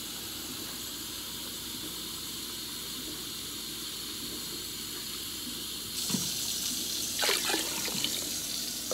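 Steady rush of running water; about six seconds in it gets louder as water is poured from a container into a pot of soup vegetables, with a few splashes.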